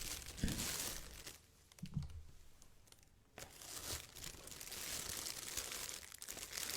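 Close-miked crinkling and rustling of handled material, going quiet for about two seconds midway and then continuing steadily.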